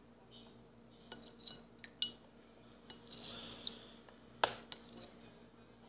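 A few faint, scattered clinks and knocks of a utensil against a bowl and a plastic tub while slime is mixed and borax solution added, with one sharper knock about four and a half seconds in.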